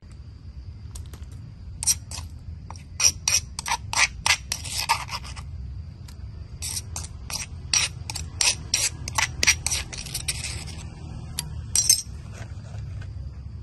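Metal spoon scraping and clinking against a ceramic bowl as a pounded mixture is spooned in. The scrapes come in two quick runs of many short strokes, with a last pair near the end.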